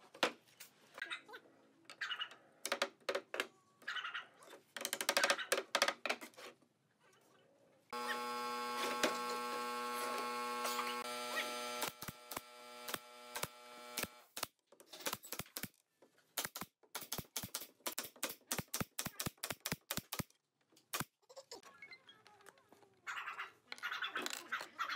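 Woodworking at a bench: wooden frame pieces knocking on the bench top, then a machine running steadily for about four seconds. A pneumatic nail gun then fires a fast run of sharp shots into pine slats, and near the end a cordless drill drives a screw.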